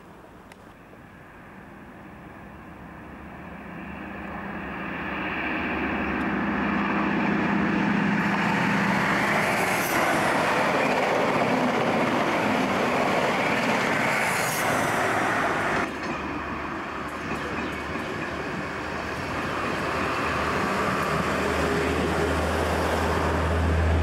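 Trains passing: an InterCity express rushing by at speed, with a rising roar of wheels on rail, a steady engine note and two brief high wheel squeals. Later a diesel train's engine drones low as it passes close below.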